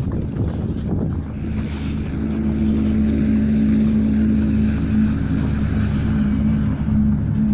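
A steady low engine drone that swells about two seconds in and then holds an even pitch.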